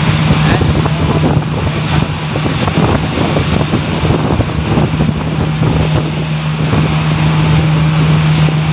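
Strong wind buffeting the microphone on a ferry's open deck, over the steady low drone of the ship's engine.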